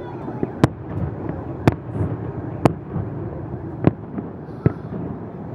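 Aerial fireworks shells bursting: five sharp bangs about a second apart over steady background noise.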